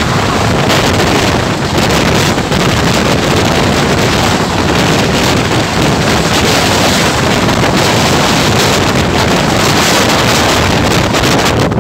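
Loud, steady rush of Indian Railways passenger coaches passing a few feet away at high speed: wheels running on the rails with heavy wind buffeting the microphone.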